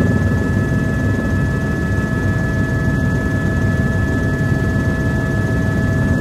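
Helicopter heard from inside the cabin in flight: a steady low rotor and engine drone with a constant high whine.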